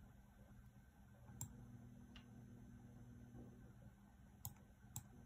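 Near silence with four faint clicks from working a laptop's mouse or touchpad, the last two close together near the end, over a low steady hum.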